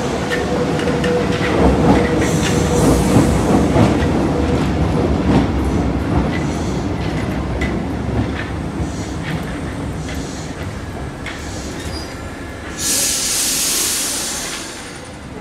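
Paris Métro train running past along the platform, its wheels clattering over the rail joints, with a steady whine that fades out after about four seconds. Near the end, a loud hiss lasting about two seconds.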